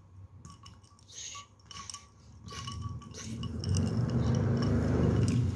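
Light clicks and taps of a small plastic toy doll against a glass bowl of water. Then, from about three seconds in, a low rubbing rumble of hands and cloth that grows louder toward the end.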